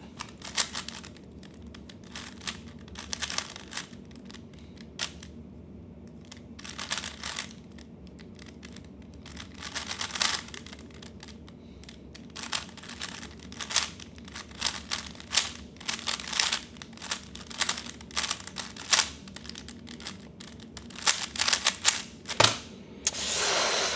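A 3x3 speedcube being turned fast by hand, its plastic layers clicking and clattering in quick flurries with short pauses between. A louder rush of noise comes just before the end.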